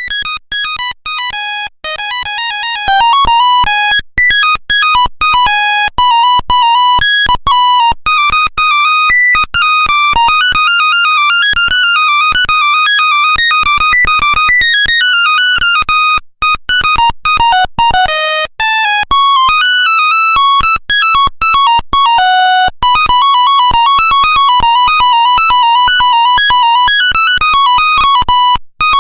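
Nokia 1100 monophonic ringtones playing: quick melodies of high-pitched beeping notes, one note at a time, with a short break about 16 seconds in and another near the end, where one tune gives way to the next.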